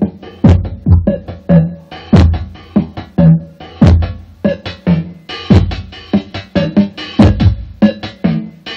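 Electronic beat from a Roland-Boss DR-202 drum machine, a looping pattern of heavy kick hits about every one and a half seconds with lighter hits, hi-hat ticks and a bass line. It plays through a small satellite speaker and subwoofer and is picked up by a cellphone.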